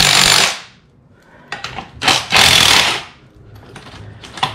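Milwaukee M12 Fuel hydraulic impact driver running in two bursts, a short one at the start and a longer one about two seconds in, spinning the threaded rod of a coil-spring compressor to let the spring tension off a strut assembly. A few light clicks near the end.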